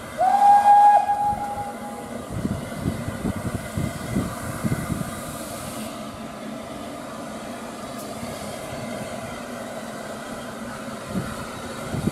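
Steam locomotive whistle: one blast of about two seconds that rises quickly to a steady note. The locomotive then moves off slowly, its exhaust beats coming as slow, uneven chuffs over a steady steam hiss.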